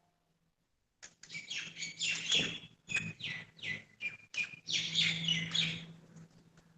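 Small birds chirping, a rapid string of short, high, falling notes for several seconds, over a faint steady low hum.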